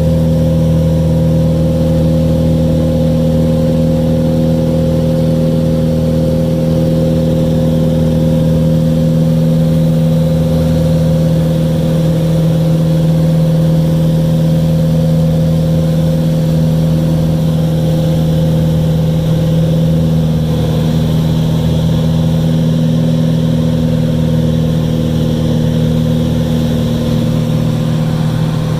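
Single-engine light airplane's piston engine and propeller in cruise, a steady drone heard from inside the cabin.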